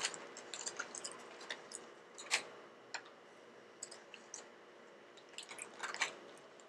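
Fingers pulling at fried chicken and dabbing it in cheese sauce in a paper fry wrapper: faint sticky squishes, small clicks and paper crinkles, with two louder rustles about two and six seconds in.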